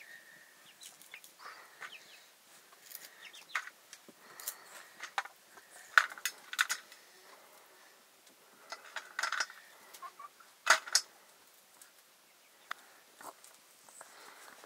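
Chickens clucking now and then, with scattered short sharp clicks and knocks, the loudest about six seconds in and again near eleven seconds.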